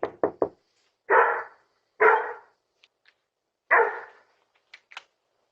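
A dog barking: a few quick short barks at the start, then three separate longer barks spaced a second or more apart.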